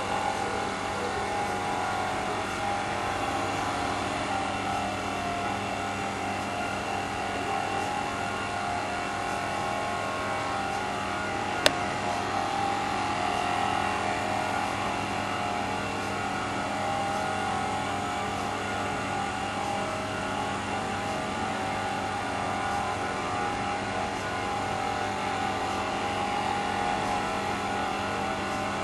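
Small motor of a 1960s Scalecraft model tugboat running steadily as the boat circles on the water, a constant-pitched mechanical hum. A single sharp click about twelve seconds in.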